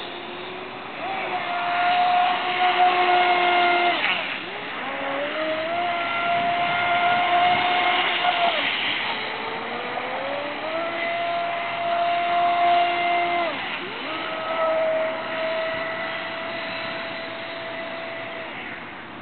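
Traxxas Spartan RC speedboat's brushless motor whining at full throttle on 4S lipo power, in four runs: each time the pitch climbs, holds high for a few seconds, then drops as the throttle comes off.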